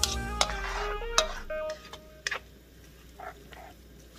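Background music fading out over the first two seconds, with a few sharp clicks of a spatula knocking against the wok and soft scrapes as the noodles are stirred.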